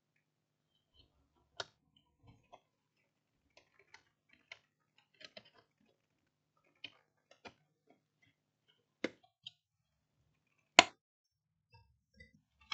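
Irregular small clicks and knocks of the charger's plastic housing and circuit board being handled and fitted together, with a louder knock about eleven seconds in.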